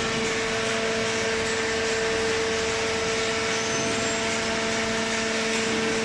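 Cardboard baler's hydraulic power unit (electric motor driving the pump) running: a steady machine hum with a strong, even low tone and its overtone over a constant rushing noise.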